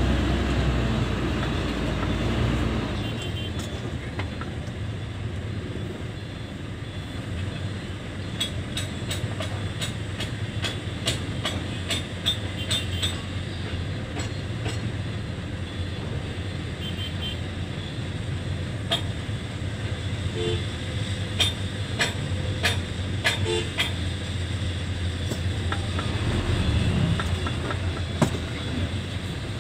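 Diesel dump truck engine running, heard from inside the cab, louder and deeper for the first few seconds and then settling to a steadier rumble. Runs of sharp clicks come at about two a second in the middle and again later, with a few more near the end.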